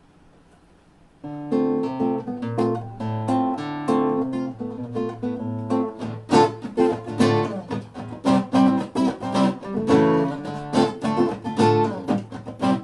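Acoustic guitar playing a bossa nova intro, starting about a second in. From about six seconds the chords settle into a steady, rhythmic bossa nova comping pattern.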